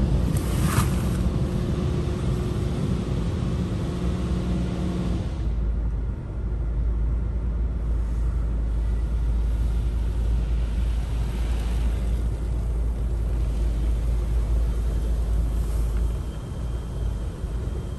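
PDQ Tandem Surfline touchless car wash heard from inside the car: a steady low rumble of high-pressure water spray against the car's body and glass, with a machine hum that stops about five seconds in. The spray hisses louder across the glass several times as the gantry passes.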